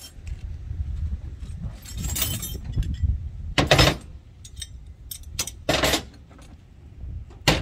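Metal hand tools clinking and jangling as hands rummage through a soft-sided tool bag, in several short bursts, the loudest a little under four seconds in. A low wind rumble on the microphone runs underneath.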